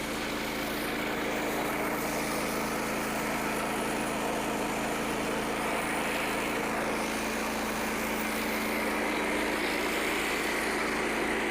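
Gasoline engine of a Frontier OS27 portable bandsaw mill running at a steady speed, with a faint steady high whine over its hum.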